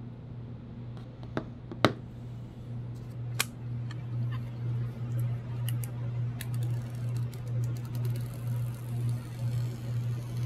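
Smartphones handled over a desk: a few sharp knocks and clicks as the phones are moved and set down, the loudest about two seconds in, then a run of light ticks. A steady low hum runs underneath and pulses in the second half.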